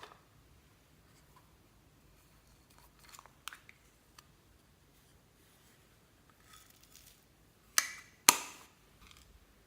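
Clear slime mixed with beads and floam being squished and worked by hand: a few faint crackles, then two sharp pops about half a second apart near the end.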